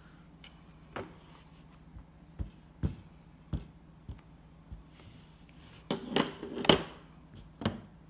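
Ink pad dabbed against a rubber stamp on a clear acrylic block: a series of soft taps, then a louder burst of rubbing and knocking about six seconds in, and one more tap near the end.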